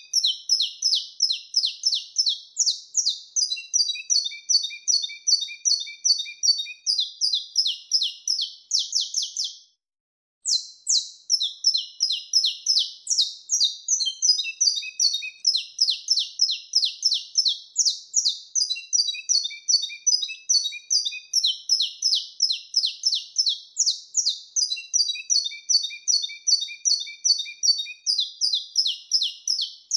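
Saffron finch singing: fast, high-pitched chips and trills run together in repeated phrases, with a half-second pause about ten seconds in.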